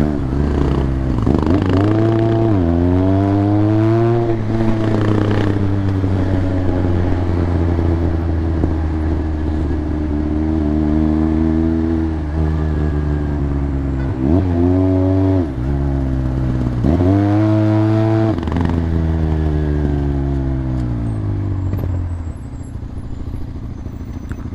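Motorcycle engine under way, its revs climbing and dropping several times as it changes gear, holding steady in between, then easing off to a lower, quieter note near the end.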